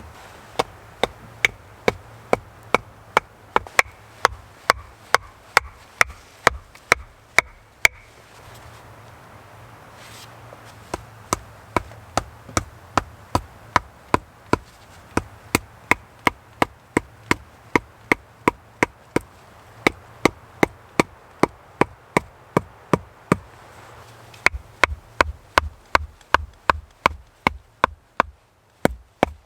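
Wood being chopped with quick, even blows, about two to three a second, in three long runs with short pauses between them.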